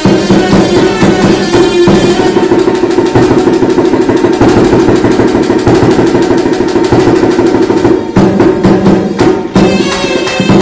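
Indian folk dance music: a fast, steady drum beat over a sustained drone, played loud.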